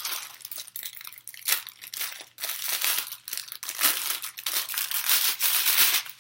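Packaging crinkling and rustling in irregular bursts as a bundle of hair extensions is handled and pulled out of it.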